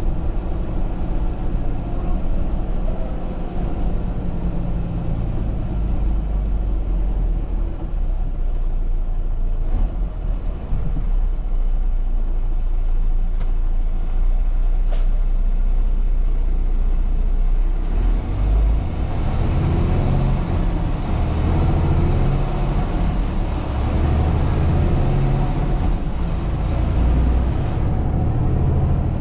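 Semi-truck's diesel engine and road noise heard from inside the cab, a steady low rumble that grows louder and fuller about two-thirds of the way in as the engine works harder.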